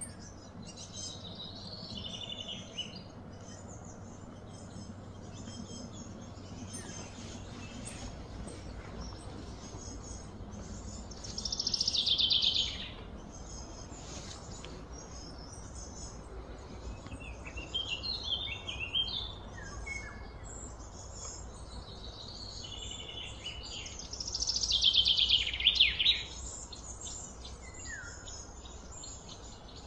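Birds chirping and singing, with two louder trilling songs of a second or two, one about twelve seconds in and one near the end, over a steady low rumble.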